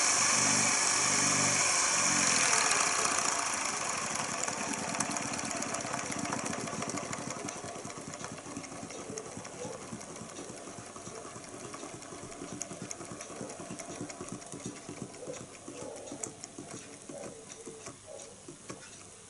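Small vertical-crankshaft Stirling engine running at about its fastest, a fast mechanical clatter, then slowing down and growing steadily quieter until its beat breaks into separate ticks near the end.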